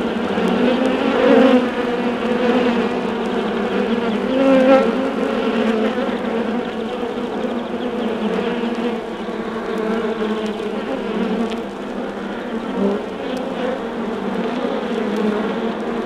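Honey bee colony humming inside an undisturbed hive: a dense, steady drone of many bees that briefly swells louder twice in the first five seconds. Faint clicks and pops from the vinyl source run through it.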